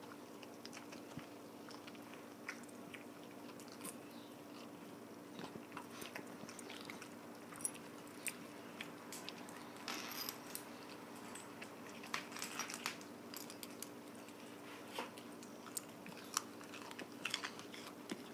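Cavalier King Charles Spaniel crunching and chewing raw carrot pieces: irregular crisp bites, coming thicker about halfway through and again near the end, over a faint steady hum.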